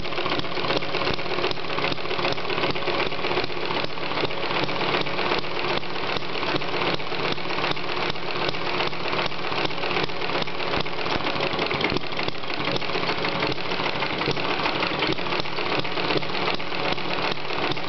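Model Atkinson engine running steadily, with a fast, even mechanical beat.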